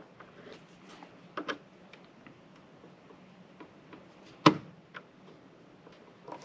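Small plastic clicks and ticks as a flathead screwdriver pries at the seam of an internet gateway's white plastic case, with one sharp, loud click about two-thirds of the way through.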